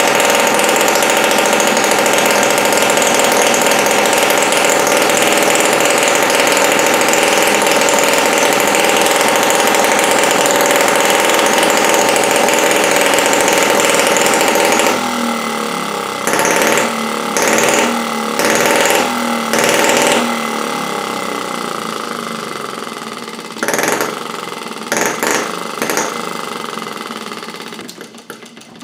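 Miniature water-cooled four-stroke gasoline model engine running steadily at speed. About halfway through the sound drops and turns uneven, with short louder bursts about once a second, then fades near the end.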